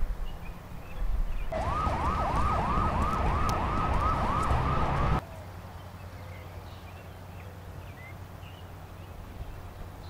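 A siren wailing in a fast up-and-down yelp, about three sweeps a second, that cuts off suddenly about five seconds in, leaving only a faint low background.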